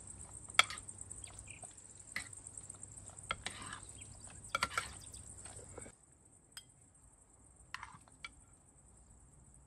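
Scattered light clicks and knocks of kitchen utensils, with a faint steady hum that stops about six seconds in.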